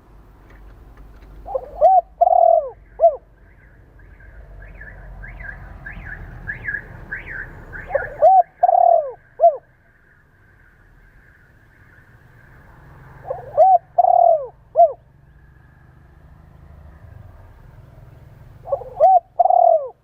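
Spotted dove cooing: four phrases, each a short coo, two longer coos and a short final coo, repeated about every five to six seconds. Between the first two phrases another bird gives a quicker run of higher notes.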